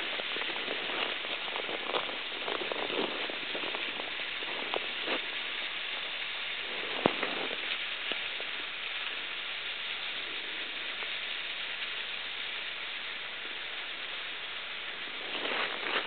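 Meltwater at a frozen waterfall: a steady hiss of running water with scattered dripping ticks, one sharper click about seven seconds in.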